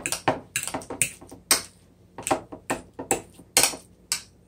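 Metal fork clinking and scraping against a ceramic bowl while mashing avocado: an irregular run of sharp taps, about four a second.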